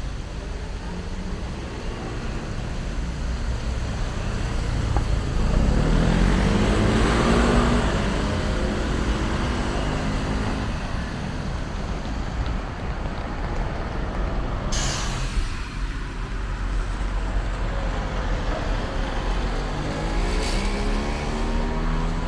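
Road traffic at a roundabout: car and bus engines going by, one pulling away with rising engine pitch about six seconds in and another near the end. About fifteen seconds in there is a short, sharp hiss of a city bus's air brakes, with a fainter hiss a few seconds later.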